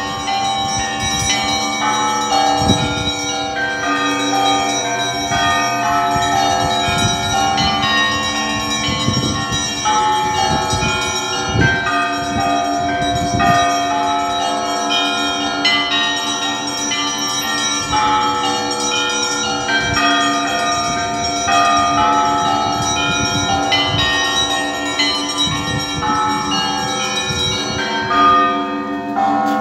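Russian Orthodox church bells ringing: many bells of different pitches struck in a continuous, overlapping peal, with quick chimes from the smaller bells over the deeper bells ringing on underneath.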